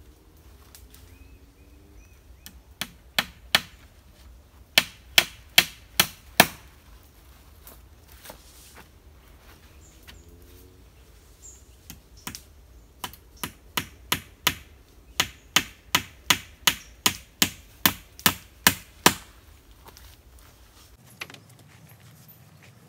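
Repeated sharp strikes of a tool on wood, evenly spaced at about two and a half blows a second. They come in a run of three, then five, then after a pause a long run of about fifteen.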